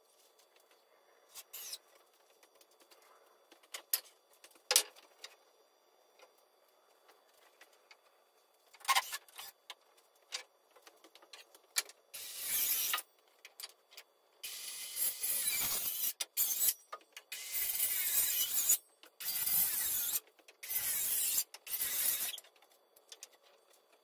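A few scattered knocks of lumber being handled, then a power tool run in about six short bursts, each a second or so long, starting and stopping sharply, as the stud wall frame is fastened together.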